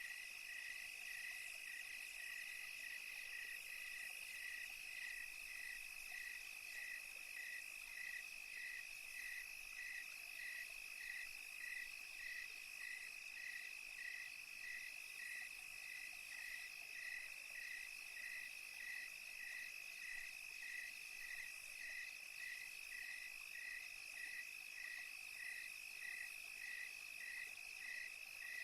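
Night crickets: one steady high trill alongside a regular chirp repeating about three times every two seconds, over a high insect hiss.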